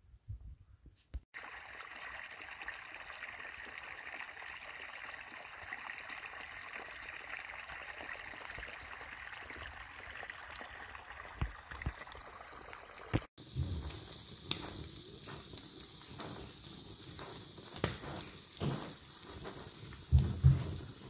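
Irrigation water running along a furrow in a steady rush. About thirteen seconds in, this cuts to a charcoal fire crackling under spit-roasted duck, with a few louder thumps near the end.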